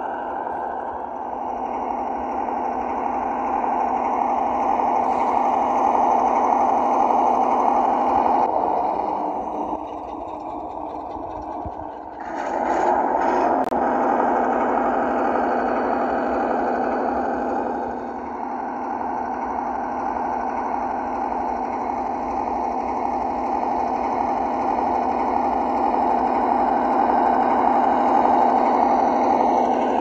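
Simulated ZIL-131 V8 truck engine from an RC model's sound module, played through a small speaker and running steadily. About a third of the way in it drops off for a few seconds, then rises again sharply.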